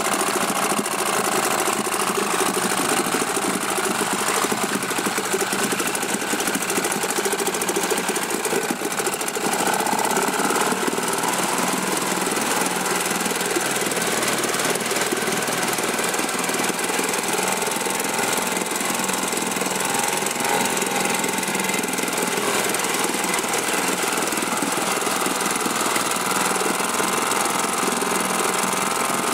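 British Seagull outboard's single-cylinder two-stroke engine running steadily in a test tank, the propeller churning the water.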